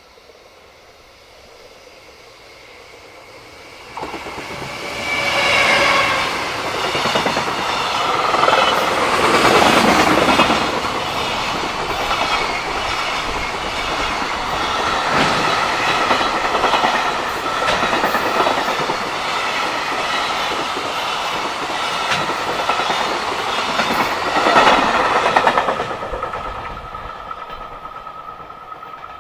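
JR Freight freight train passing close by: the locomotive arrives suddenly about four seconds in, then a long string of freight wagons rolls past with clattering wheels, before the sound fades away near the end.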